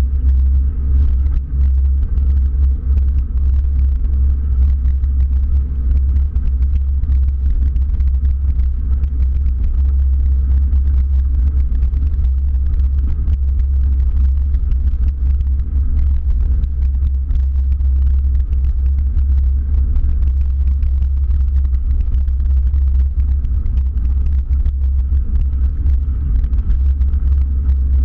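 Wind buffeting the camera's microphone as a bicycle rolls downhill on a gravel road: a loud, steady low rumble, with the faint crunch and patter of tyres on gravel beneath it.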